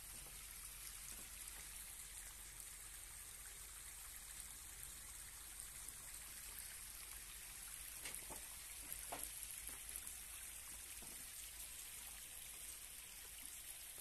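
Faint steady rush and trickle of a small waterfall, a hillside stream spilling down toward the sea, with a few faint ticks about halfway through.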